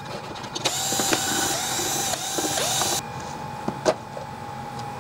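Cordless drill/driver backing screws out of a plastic housing: the motor whines in short runs, its pitch dipping several times as the trigger is eased. It stops about three seconds in, and a couple of light clicks follow.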